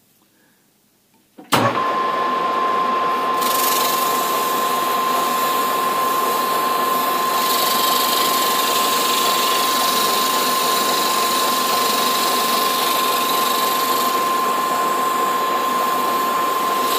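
A metal lathe starts about a second and a half in and runs steadily with a constant whine, spinning a pump motor's steel shaft. From about three and a half seconds in, coarse abrasive cloth held against the turning shaft adds a steady hiss as the shaft is cleaned along its length.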